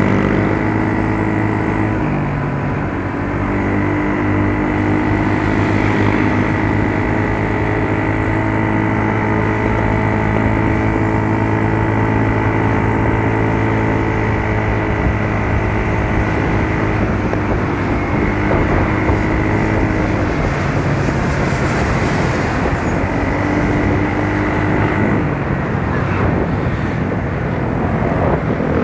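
Yamaha Mio Soul scooter's engine running while being ridden, a steady drone that changes pitch a couple of times as the engine speed changes.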